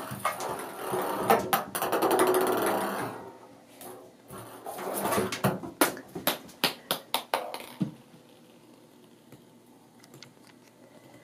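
Ping pong ball rolling around a bathtub and clicking off its sides as a kitten bats it, with a quick run of bounces stopping about eight seconds in.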